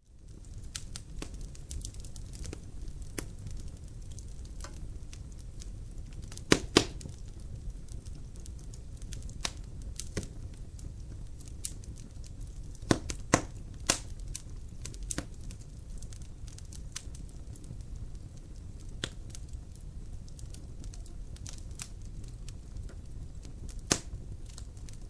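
Wood fire in a fireplace crackling: a steady low rumble of flame with scattered sharp pops, a few louder ones about six and thirteen seconds in and one near the end.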